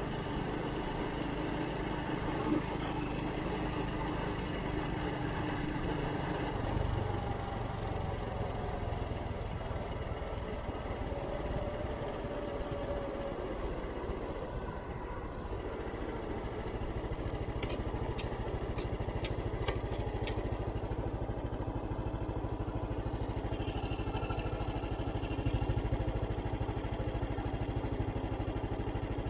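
Vehicle engine running steadily on the move, its note drifting slowly up and down, with a short run of sharp ticks about two a second around eighteen seconds in.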